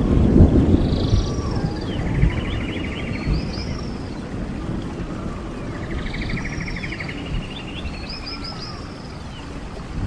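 A songbird singing twice, about a second in and again about five seconds in; each phrase is a fast trill with high slurred notes above it. Beneath the song runs a low rushing noise that is loudest at first and eases off.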